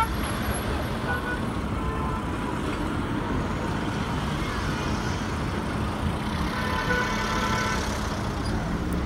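Road traffic passing close by: car and minibus engines and tyres in a steady mix of noise, with a brief faint pitched tone about seven seconds in.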